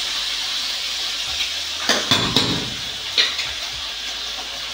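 Steady hissing, with sharp metal clinks as a steel ladle knocks against an aluminium pressure cooker about two seconds in and again a little after three seconds.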